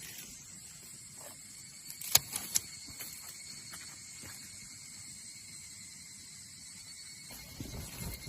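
Steady high-pitched insect chorus. Two sharp clicks come about two seconds in, and there is low rustling near the end.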